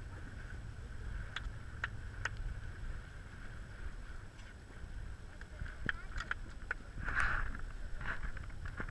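Motorboat running steadily, a low rumble with a constant whine from the engine. A few sharp knocks come through, and about seven seconds in there is a short rushing splash.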